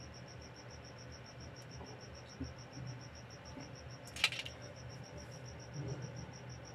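An insect chirping steadily: a high-pitched, even pulsing of about eight pulses a second. A single sharp click a little past four seconds in.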